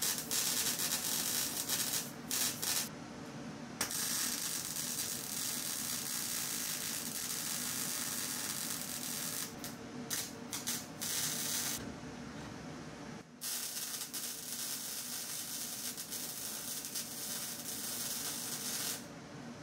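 Electric welder arc crackling and hissing as a sheet-metal shifter-mount bracket is tack- and stitch-welded to a car's floor tunnel: several runs of welding, the longest about five or six seconds, separated by short pauses, with a faint steady hum underneath.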